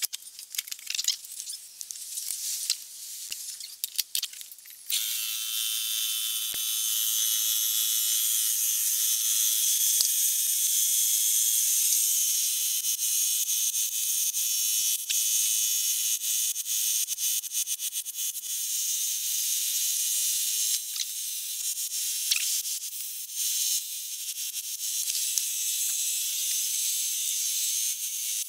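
Clinks and clatter, then about five seconds in a steady high hiss with a faint whine starts and keeps going. This is a small air compressor running to inflate the Super Cub's freshly fitted rear tyre through a hose.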